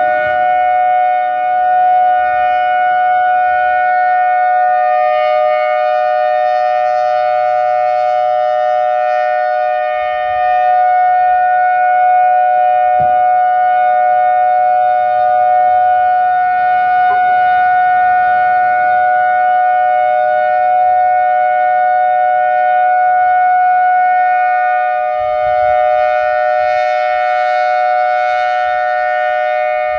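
Whelen Vortex R4 "Thunder" outdoor warning siren sounding its steady alert signal: a loud, unwavering chord of two pitches held throughout, with a rich stack of overtones.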